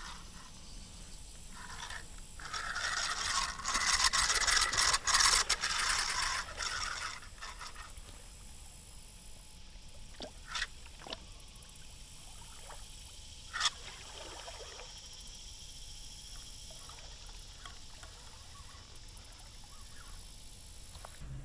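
Water splashing and churning for several seconds as an alligator moves at the surface, followed by a few short, sharp clicks.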